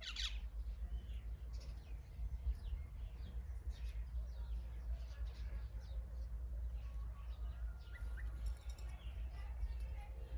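Many small birds chirping, a steady run of short, quick high calls, over a low steady rumble. A brief thin whistled note comes about eight seconds in.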